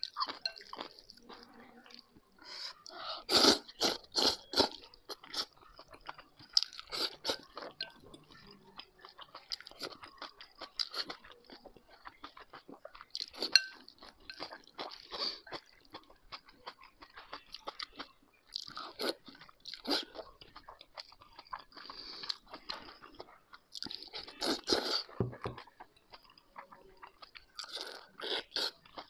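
A person eating noodles tossed with twice-cooked pork and potato slices, picked up close on a clip-on microphone. There are spells of chewing and mouth clicks every few seconds, with quieter gaps between them.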